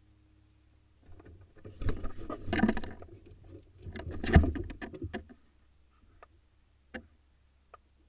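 A barn owl and a female kestrel scuffling inside a wooden nest box: wing flaps, scrabbling claws on the wood and nest debris, and heavy thumps for about four seconds, then a few sharp taps near the end.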